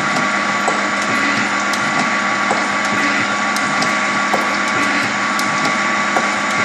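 Sunderland No. 16 gear planer running steadily as it cuts a pinion: a constant mechanical din with held tones and sharp ticks about once a second.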